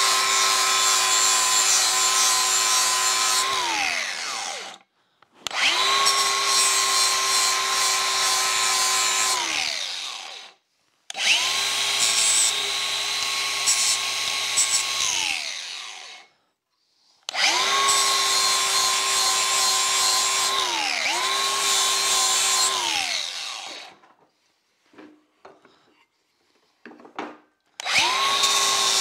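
Angle grinder grinding a bevel into an outboard gearbox's aluminium skeg as weld preparation. It runs in repeated bursts of about four seconds, and the motor winds down each time the trigger is let go. A pause of a few seconds near the end holds a few light knocks before the grinder starts again.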